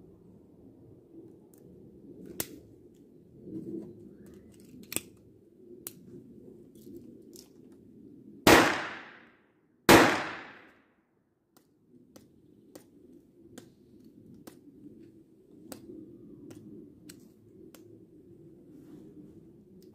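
Two shots from a Taurus PT-22 .22LR pistol firing CCI Blazer rounds, about a second and a half apart, each with a short echoing tail. Faint clicks come before and after the shots.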